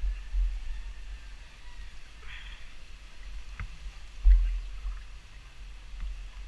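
A motorcycle rolling through shallow floodwater, its tyres splashing and spraying water, over a constant low rumble. A heavy low thump comes about four seconds in.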